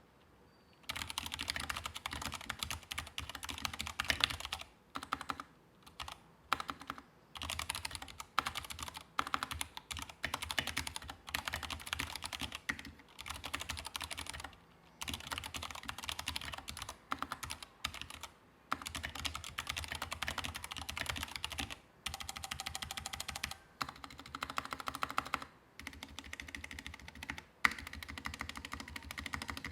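Anne Pro 2 60% mechanical keyboard typed on quickly in bursts of rapid keystrokes with short pauses between. It has PBT keycaps, lubed stabilizers and unlubed switches. One stroke near the end is louder than the rest.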